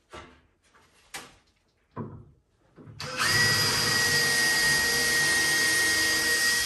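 Power drill running at a steady speed for nearly four seconds, pre-drilling a pilot hole through a cabinet face frame into the next frame, then stopping abruptly. A few light knocks come before it starts.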